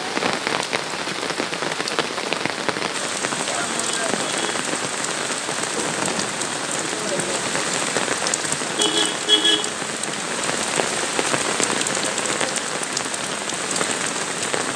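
Hailstorm: hailstones and rain pelting the ground in a dense, steady patter of sharp clicks over a rushing hiss. A brief double tone sounds about nine seconds in.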